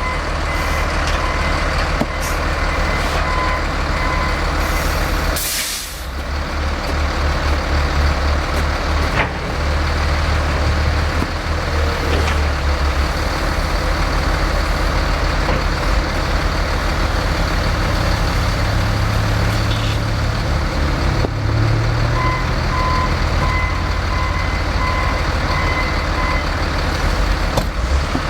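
Heavy diesel snow-removal equipment, front loaders and a dump truck, running steadily, with a backup alarm beeping in short runs near the start and again near the end. A short loud hiss comes about five and a half seconds in.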